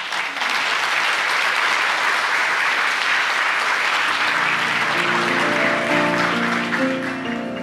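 Congregation applauding. About four seconds in, a piano starts playing chords beneath the clapping.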